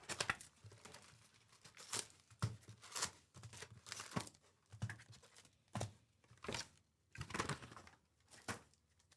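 Foil-wrapped trading-card packs crinkling and rustling as they are pulled out of a cardboard hobby box and stacked, in short irregular bursts.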